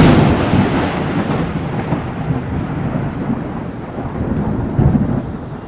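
Thunder sound effect: a loud crack right at the start, then a long rolling rumble that swells again about five seconds in.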